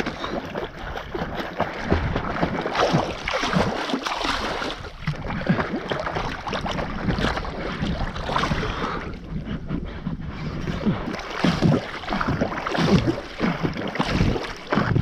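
Water splashing and sloshing in irregular surges as a person paddles across a river on an inflatable float.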